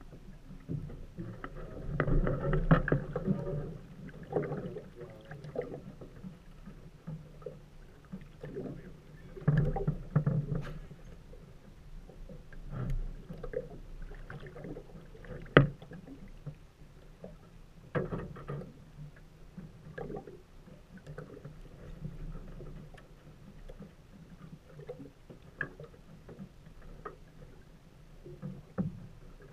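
Small aluminium fishing boat on a lake: water slapping against the hull, with irregular knocks and clunks in the boat and one sharp knock about halfway through.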